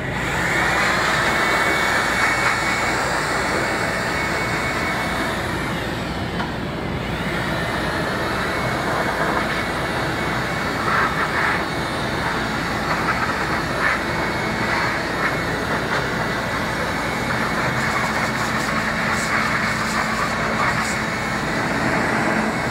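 Handheld electric air blower running steadily, blowing dust out of the open cabinet of an arc-welding machine.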